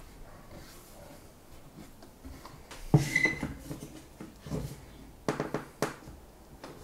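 One-handed bar clamps being set and tightened on a red oak table frame: a sharp knock of clamp on wood about three seconds in, then a quick run of ratchet clicks as a trigger is squeezed.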